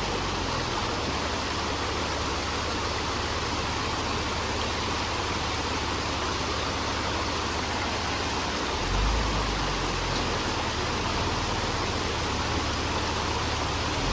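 Steady rushing hiss over the low rumble of a Jeep Wrangler TJ's engine running slowly, the rumble swelling briefly about nine seconds in.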